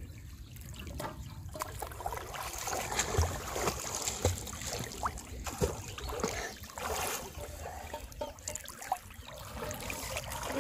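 Pond water sloshing and trickling as people wade chest-deep through it, pushing a floating aluminium pot along the surface, with a few light knocks.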